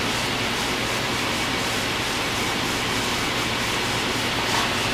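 Gas stove burner running at medium flame, a steady hiss of burning gas.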